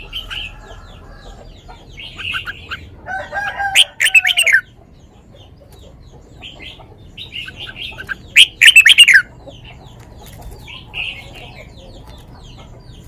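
Caged red-whiskered bulbul singing in short sweet phrases, with two loud full phrases about three and eight seconds in and softer chirps between.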